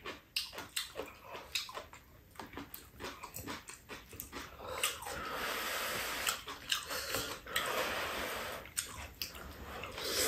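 Eating sounds: short smacks and clicks of chewing and utensils, then a long drawn-out slurp of noodles from about four and a half to eight and a half seconds in, followed by more chewing.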